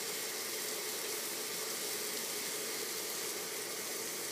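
Frozen hamburger patties sizzling steadily on an induction cooktop.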